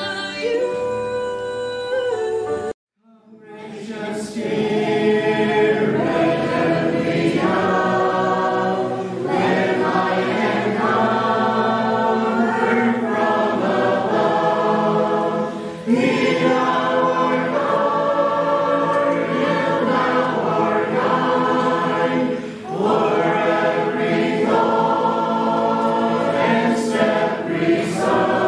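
Choir singing a song in several voices. About three seconds in the sound cuts out abruptly for a moment before the choir singing begins.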